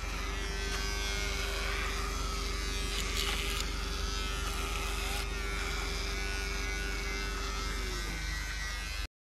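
Cordless electric razor buzzing steadily as it shaves off a beard. Near the end its pitch sinks, then the sound cuts off suddenly.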